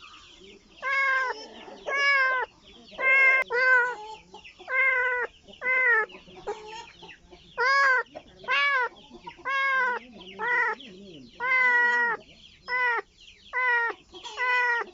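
Kitten meowing over and over, short high calls about once a second, calling for its mother.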